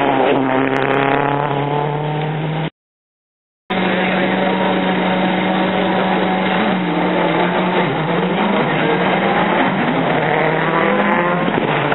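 Rally car engine at high revs, its pitch sliding down as it goes by. After a silent gap of about a second, a rally car engine revs up and down through gear changes.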